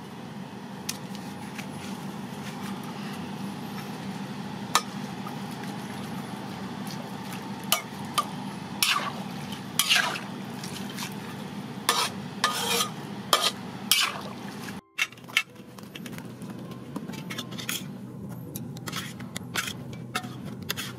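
A metal spoon clinking and scraping against a metal pan as shredded red cabbage and enoki mushrooms are stirred, with the clinks coming thickest in the middle, over a steady low hum.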